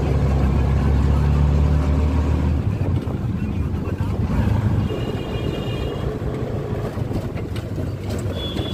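Auto-rickshaw engine running with road noise, heard from inside the open cab. The steady low engine hum drops away about two and a half seconds in, leaving rougher road noise. Two brief high tones sound, one about five seconds in and one near the end.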